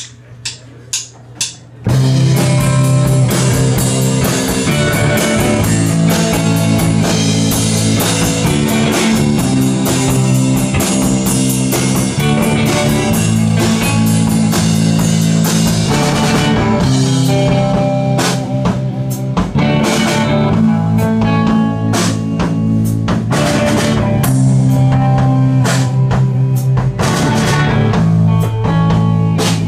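Four count-in clicks about half a second apart, then a live rock band of electric guitar, electric bass and drum kit kicks in loud about two seconds in and plays on.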